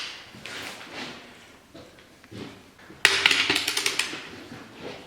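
Ratchet wrench clicking rapidly while running down the main-bearing cap plate bolts on a 6G72 V6 block. The clicking starts suddenly about three seconds in, after a single click and some light tool clatter.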